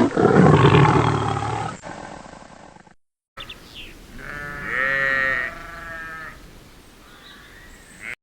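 Two separate farm animal recordings: a loud, rough, low call fading out over the first three seconds, then after a brief gap a wavering bleat-like call about halfway through.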